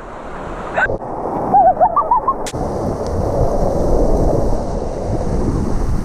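Creek water rushing over rock, growing louder over the first few seconds and then holding steady, with a sharp click about two and a half seconds in.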